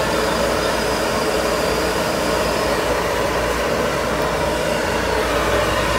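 Steady rushing background noise in a large store, even and unbroken, with a faint high whine that fades out a little before halfway.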